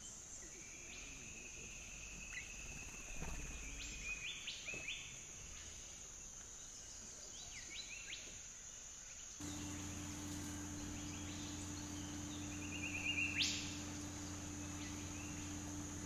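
Forest ambience: a steady high insect drone under scattered bird chirps and short rising calls, with a quick run of bird notes near the end. About halfway a cut brings in a steady low hum.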